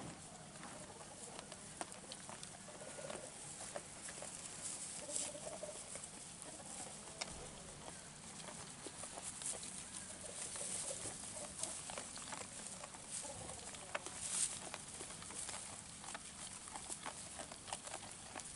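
Cameroon sheep feeding on dry hay: the hay rustles and crackles in many small irregular clicks as they pull at it and chew.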